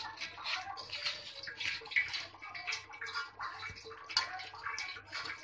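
A hand mixing raw prawns coated in chilli powder, turmeric, salt and cornflour in a metal bowl: a quick, irregular run of wet squishing noises, several a second.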